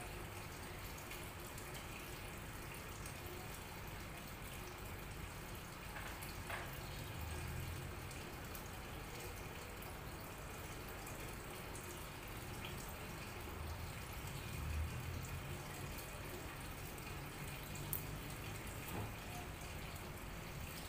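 Aquarium water trickling steadily, with a few faint knocks and clicks as the light tube and its cable are handled against the tank.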